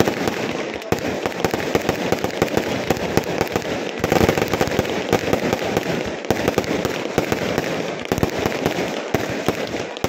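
Fireworks going off in a dense, rapid stream of crackles and pops, with aerial shells bursting into sparks overhead; the barrage is loudest about four seconds in.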